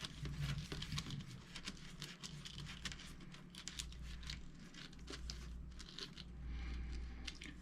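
Steel cable being fed through plastic hose: faint rustling and scraping with many scattered small clicks.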